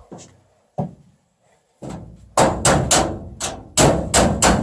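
Hammering: two light knocks, then about two seconds in a quick run of sharp hammer blows, three or four a second, each ringing briefly.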